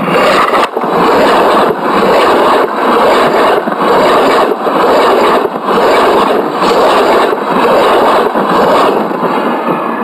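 Loud steady rushing noise of a double-deck commuter train in motion, heard from right beside its carriages, with a soft regular thud about once a second.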